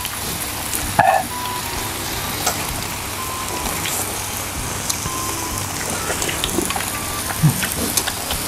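Marinated mutton and chicken sizzling on a round tabletop grill pan: a steady frying hiss with scattered pops and crackles, and a sharper knock about a second in.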